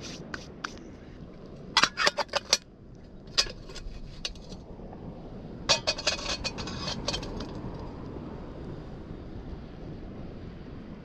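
Metal clinking and clattering in three short bursts, a camp billy can and cup being handled by the fire to boil water for coffee, over a steady low hiss.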